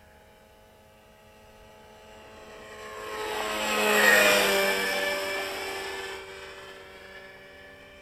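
Radio-controlled model helicopter flying past close by, its engine and rotor sound swelling to a peak about halfway through and fading away, the pitch dropping as it passes.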